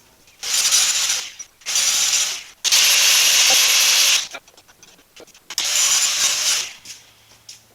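Steel tubing being ground down with a grinder, in four bursts of harsh, hissing grinding, the third the longest, with quiet gaps between.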